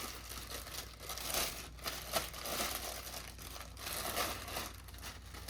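Plastic packaging crinkling and rustling on and off as the kit's parts are handled and unwrapped.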